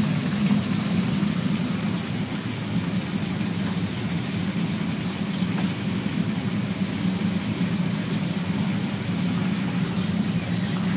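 Salmon simmering and sizzling in a pan of thick red curry sauce, a steady crackling hiss over a constant low kitchen hum.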